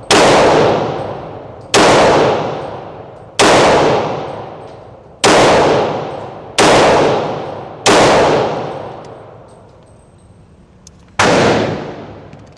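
Smith & Wesson M&P 40 Pro Series Performance Center .40 cal pistol fired seven times in slow single shots on its standard trigger, each shot followed by a ringing echo that dies away over a second or so, with a longer pause before the last shot.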